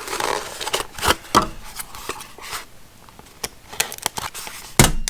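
Hands handling small camera-mount parts and their packaging: a string of light clicks and rustles, with one louder knock near the end.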